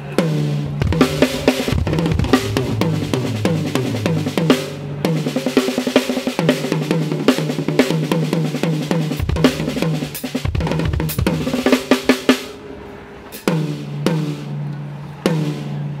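Drum kit played during a sound check: fast fills across snare, toms and bass drum with cymbals, for about twelve seconds. Then a short lull, followed by a few single tom strikes left ringing.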